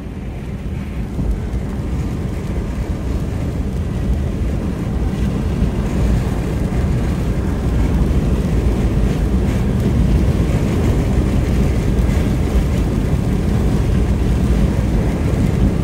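Steady low road and wind noise inside an armored storm-chasing vehicle driving on a wet highway in stormy wind and rain, growing a little louder over the first half.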